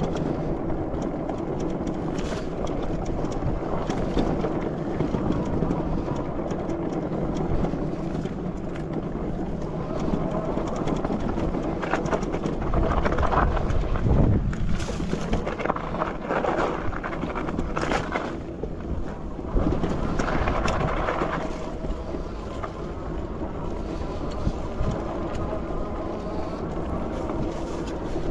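Wind rushing over a handlebar-mounted microphone while an e-bike rides a dirt singletrack, its tyres rumbling over the rough trail. The noise swells for several seconds around the middle.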